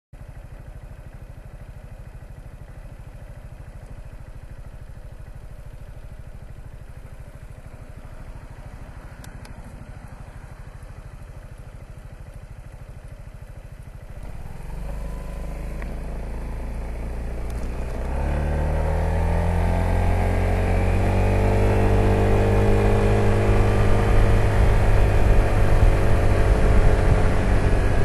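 Piaggio BV 350 scooter's single-cylinder four-stroke engine idling at a stop, then pulling away about halfway through. Its note rises in pitch and grows steadily louder as it accelerates.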